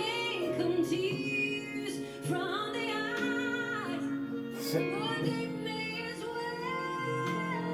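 Female lead vocalist singing long held and bending notes over a live band's backing.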